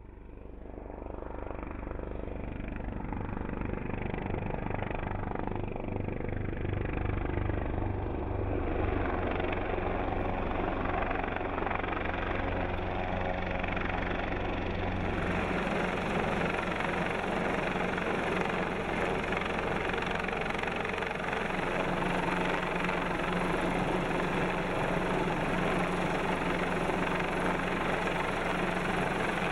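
Helicopter rotor and turbine running steadily as it carries a steel pylon section on a long line. The sound fades in over the first few seconds, with a low rhythmic rotor beat underneath.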